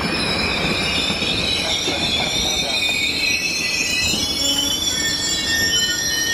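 Amtrak Superliner passenger cars rolling slowly past, their steel wheels squealing over a low rumble as the train comes into its station stop. The high squeal wavers at first, then settles into a steadier single tone near the end.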